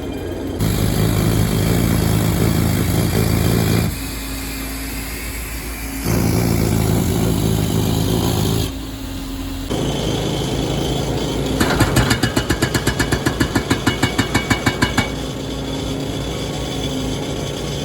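Engine of a foundation drilling rig working, its revs stepping up and down in spells of a few seconds. About twelve seconds in, a rapid pulsing of about six beats a second runs for some three seconds.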